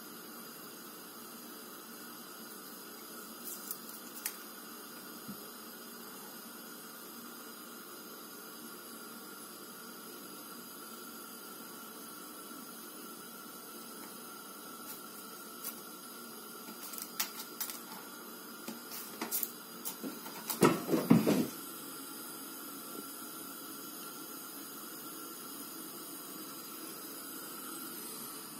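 Faint steady hiss of room noise with a few light taps and rustles, and a louder cluster of knocks and scuffles about 21 seconds in, from a cat batting a dry wheat ear about on a wooden shelf.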